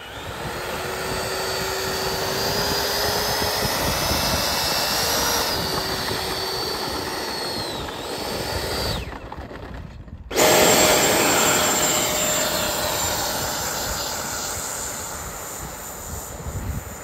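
Electric ducted fan of a 3D-printed RC Yak-15 jet model whining under throttle as it taxis on the ground, its pitch rising a little in the first few seconds. Near the middle the sound cuts off, then a louder, higher-pitched whine at full throttle starts abruptly and slowly fades as the model runs across the grass.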